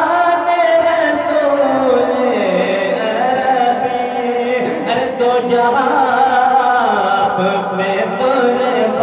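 A man singing a naat, an Urdu devotional poem, into a microphone, drawing out long melodic lines that slide down in pitch.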